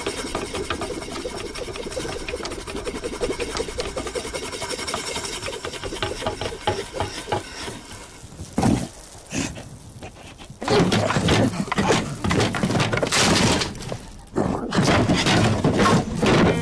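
Cartoon slapstick sound effects of a wooden crate rattling and clattering as it is knocked about, then several louder crashes and breaking-wood hits in the second half.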